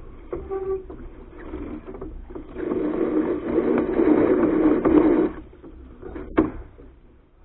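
Soling keelboat under sail, heard from a camera on its foredeck: a rough rush of wind and water with small knocks and rattles, swelling about two and a half seconds in and dropping away about five seconds in. A sharp knock comes about six seconds in.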